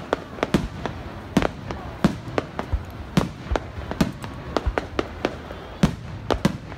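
Fireworks display: aerial shells bursting in quick succession, an uneven string of sharp bangs about three a second.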